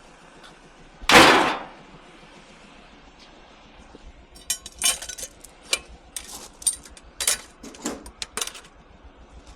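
Scrap metal being handled: one loud metal clang about a second in, then a run of irregular sharp metallic clinks and knocks over several seconds.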